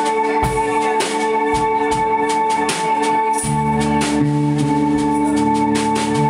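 Live band playing an instrumental passage: sustained, droning chords over a steady pattern of drum and cymbal hits, with low bass notes joining about halfway through.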